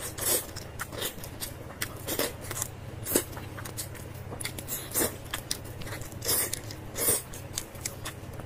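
Close-miked eating: biting and chewing, with irregular sharp crunches and clicks over a steady low hum.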